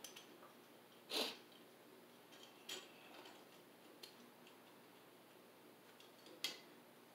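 Quiet handling noises from wiring work at a boiler's circulating pump: a few short scrapes and clicks, the loudest about a second in, another near three seconds and a sharp one near the end.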